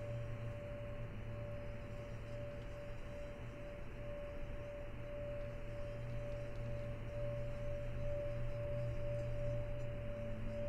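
A steady ringing drone tone that swells gently in and out, over a low hum and soft hiss.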